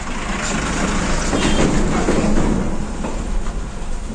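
A Tata container truck passing close alongside the car: its engine and tyre noise swell to a peak about two seconds in and then fade, over the car's own steady road noise.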